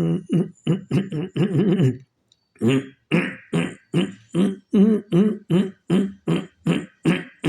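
A man's rhythmic voiced throat pulses: short buzzing grunts pushed out on the breath, about three a second, with a brief pause about two seconds in. It is a self-devised breath-and-voice vibration exercise meant to soothe an itchy throat and stop a cough.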